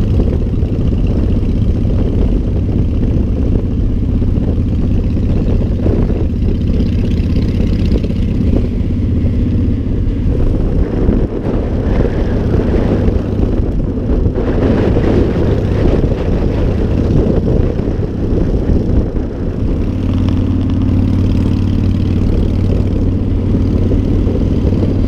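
Motorcycle engine running steadily while riding, heard from the bike itself, with a noisier stretch about halfway through and a stronger, steadier engine note over the last few seconds.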